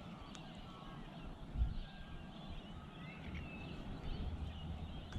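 Birds calling in the background, a scatter of short chirps and whistles, over a low steady rumble.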